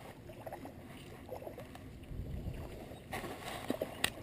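Light water splashing and lapping at a creek's edge, growing brighter about three seconds in, over a low wind rumble on the microphone, with a sharp click near the end.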